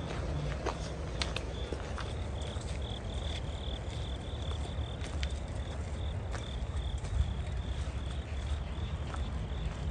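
Insects chirring: a steady, rapidly pulsing high-pitched call that starts about a second and a half in and fades near the end, over a constant low rumble and a few scattered clicks.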